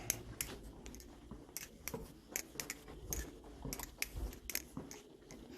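Balisong (butterfly knife) being flipped: its handles swing and clack against each other and the tang in a run of short, irregular clicks, a few a second.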